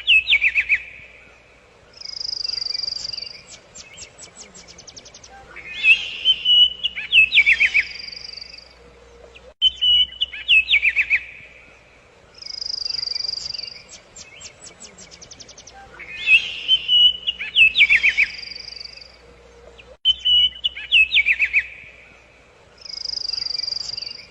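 Songbirds singing: short sharp calls and trills, then a high held note followed by a quick run of ticks, the same sequence coming back about every ten seconds.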